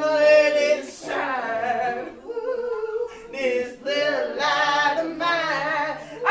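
A woman singing a gospel song a cappella in long, drawn-out notes that waver in pitch.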